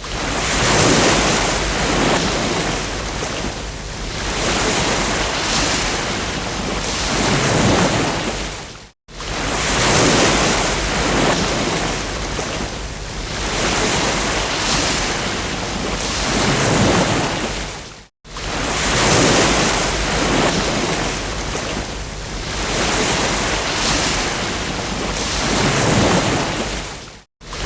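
Ocean surf: waves breaking and washing in, swelling and ebbing every few seconds. The sound cuts out completely for an instant about every nine seconds, like a short looped recording.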